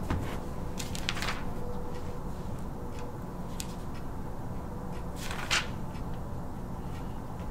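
Steady low room noise with a faint hum, broken by a few short rustles and knocks of papers being handled on a table, the loudest about five and a half seconds in.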